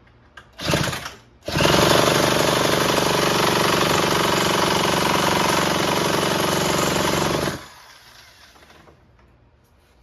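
Husqvarna 128LD two-stroke trimmer engine, muffler off and throttle wide open, spun over at about 2,000 RPM without firing: a short burst about a second in, then about six seconds of steady rapid pulsing that stops near the eight-second mark. The engine will not start despite good spark, timing and compression.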